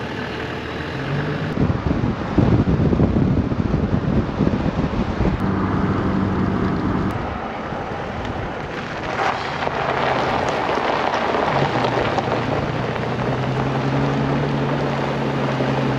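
Toyota Troop Carrier driving on the road, its engine running with a note that shifts in pitch a few times, under heavy wind and road noise buffeting a microphone mounted outside the vehicle.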